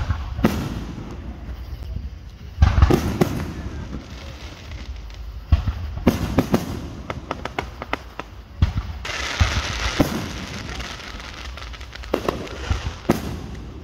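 Aerial fireworks display with shells bursting in a string of booms and sharp bangs. A run of quick pops comes about six seconds in, and a stretch of dense crackling around nine to ten seconds.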